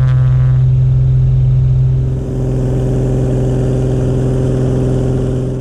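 Mooney M20K Encore's turbocharged six-cylinder engine and propeller at full takeoff power during the takeoff roll, a steady, loud drone heard inside the cabin.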